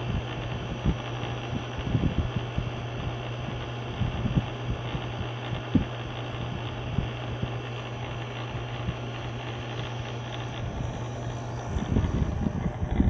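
Small clip-on electric fan running with a steady hum, its airflow buffeting the microphone in low gusty thumps. The hum drops out near the end while the buffeting gets louder.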